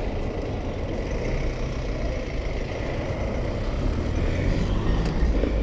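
Steady road-traffic noise: vehicles running along a busy avenue, a continuous rumble with tyre hiss.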